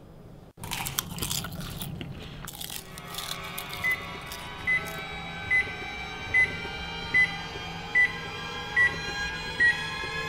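A short run of sharp crackling clicks, then a single high electronic beep repeating evenly about every 0.8 seconds over a steady low drone.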